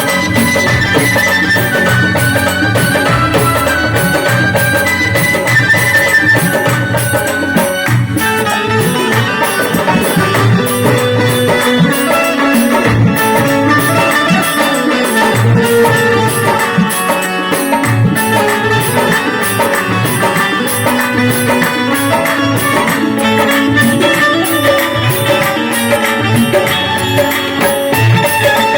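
Loud folk-style music with a fast, steady percussion beat, played back over a DJ sound system.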